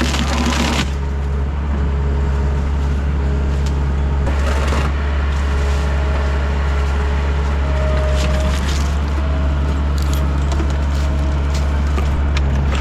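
Takeuchi TL10 compact track loader's diesel engine running steadily under hydraulic load, with scattered short crackles and snaps of wood over it.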